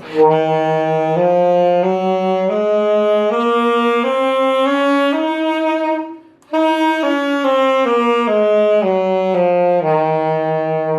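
Saxophone playing a Dorian mode scale in C: about eight notes stepping up one at a time, a short break for breath about six seconds in, then the scale stepping back down.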